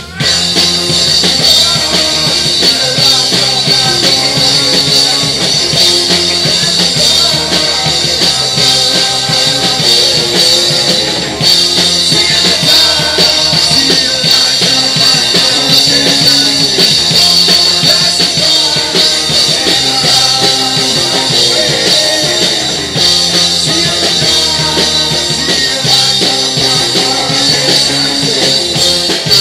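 Live rock band playing loud on electric guitars and a drum kit, the full band coming in all at once at the start.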